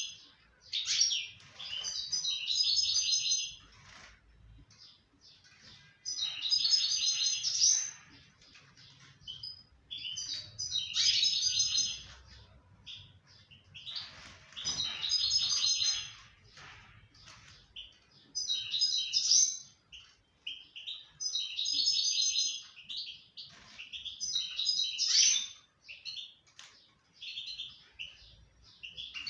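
Moroccan goldfinch (European goldfinch) singing: phrases of rapid, tinkling twitter a second or two long, repeated every few seconds with short pauses between.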